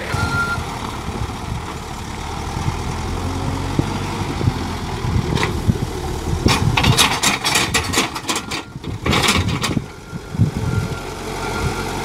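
JCB backhoe loader's diesel engine running under load as its front bucket pushes fill dirt, with a run of clattering and scraping noises in the middle. Its reversing alarm beeps near the start and again near the end as it backs away.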